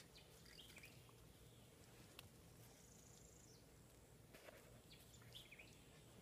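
Near silence: faint outdoor ambience with a few faint short chirps and scattered light clicks.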